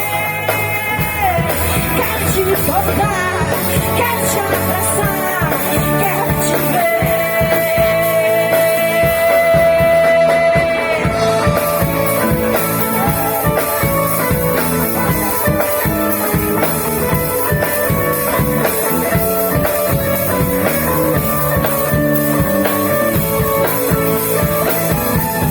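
Live band playing a worship song: singing over electric guitar, bass, keyboard and drum kit, with a long held note from about seven to eleven seconds in.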